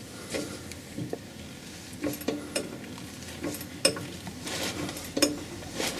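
Metal suspension parts clinking and knocking irregularly, a dozen or so short sharp clicks, as the upper trunnion is worked into place between the shock absorber's lever arms.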